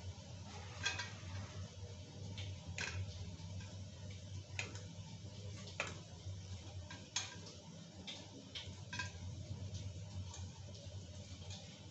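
Bay leaves and dried red chillies frying in hot oil in a kadai, crackling with sporadic sharp pops, roughly one a second at irregular spacing, over a low steady hum.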